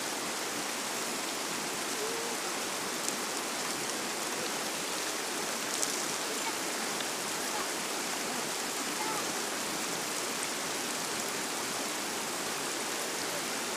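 Steady rush of a river flowing over a stony bed, with a couple of faint clicks.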